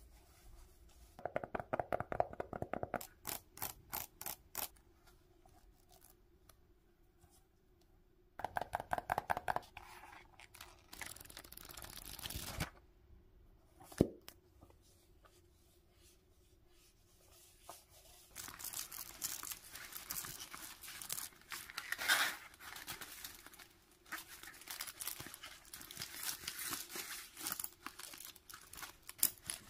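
Hands handling school supplies: two quick runs of rhythmic fingernail scratching on a plush-covered spiral notebook, a single sharp click midway, then a denser crinkling rustle from a mesh-and-plastic pencil pouch holding pens for the last third.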